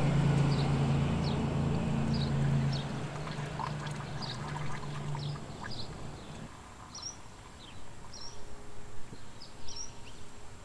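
Coolant pouring from a jug through a plastic funnel into a car's radiator filler neck: a steady rushing pour with a steady low tone, easing off and stopping about six and a half seconds in. Small birds chirp now and then throughout.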